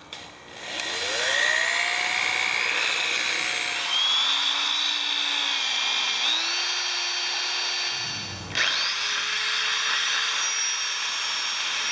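Corded electric drill driving a long drill bit down through the centre of a log. The motor whine rises as it spins up and climbs in steps, then slows sharply with a thump about eight seconds in as the bit bogs in the wood, and picks back up to a steady whine.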